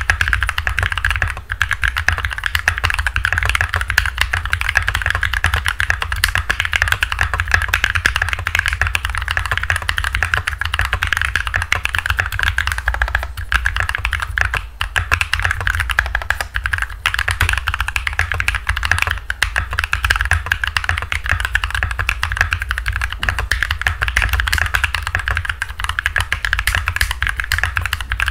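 Fast, continuous typing on a Royal Kludge RK68 mechanical keyboard with tactile Holy Panda switches on an aluminum plate, a dense clatter of keystrokes with only brief pauses. A steady low hum from the microphone runs underneath.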